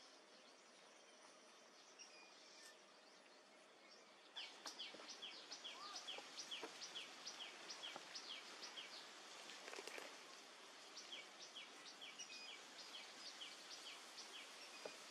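Faint outdoor ambience with a bird calling a long series of short, high, falling notes, about two or three a second, starting a few seconds in and breaking off briefly midway.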